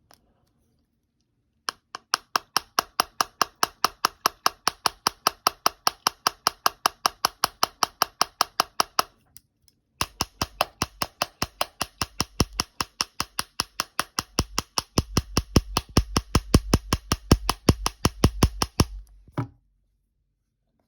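A pen tapping rapidly and evenly on an iPhone 6s, about five sharp taps a second, in two long runs with a short pause between them. In the second run each tap carries a heavier thud, and the taps grow louder toward the end.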